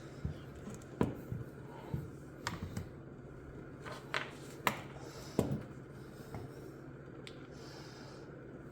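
Irregular light clicks and taps of small parts and tools being handled on a workbench, about a dozen in all, the sharpest around the middle, over a steady low hum.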